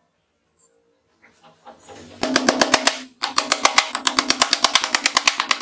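A hammer striking a stack of glued plywood boards in rapid repeated taps, several blows a second. The taps come in two runs, with a brief break about three seconds in.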